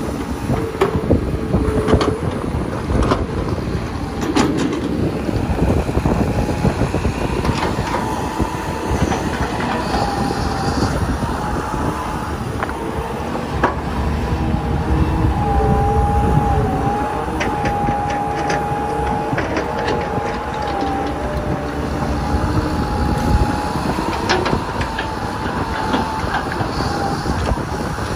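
Hydraulic crawler excavators digging soil and loading dump trucks. The diesel engine runs under load with a steady low rumble and a whining tone that wavers in pitch through the middle and later part, while the bucket and tracks give scattered clanks and knocks.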